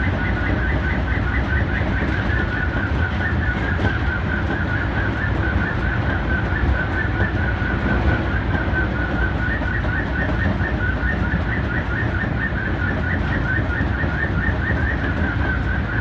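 Osaka Municipal Subway 25 series train running in a tunnel, heard from inside the car: a steady low rumble, with a high warbling squeal that wavers rapidly and continues throughout.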